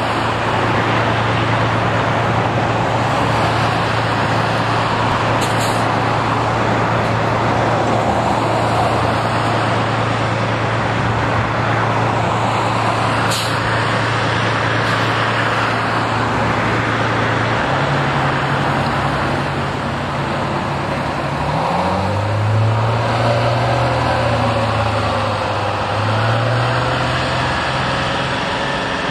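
Road traffic running steadily on a nearby road, with a low engine drone underneath that shifts up in pitch about two-thirds of the way through and wavers near the end. Two short, sharp clicks stand out briefly.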